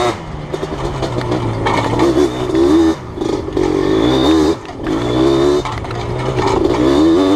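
Yamaha Blaster ATV's two-stroke single-cylinder engine revving up and down repeatedly under a blipping throttle as the quad is ridden, its pitch climbing and dropping several times.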